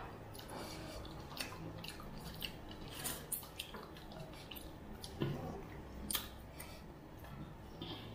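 Eating by hand: wet chewing and lip smacks with scattered sharp clicks, and fingers working food on stainless steel plates. The loudest clicks come a little past five seconds in and again about a second later.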